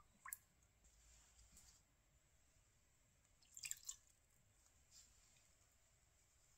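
Very faint drips and splashes of liquid poured into a bowl of yogurt: a single drip of cooking oil soon after the start, then a short cluster of splashes as vinegar goes in a little past halfway. Near silence in between.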